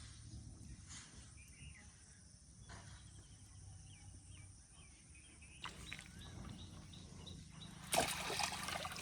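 Quiet canal-side ambience with faint chirps, then a burst of water splashing about a second before the end, as a fish takes the hook at the edge of the muddy canal.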